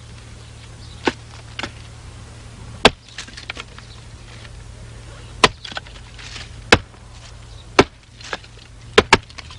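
Axe chopping firewood to stove length on a chopping block: a string of sharp strikes about a second apart, with two in quick succession near the end and lighter knocks between.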